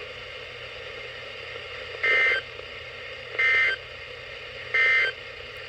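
Emergency Alert System end-of-message signal: three short, identical electronic data bursts about a second and a half apart over steady radio hiss, marking the end of the alert.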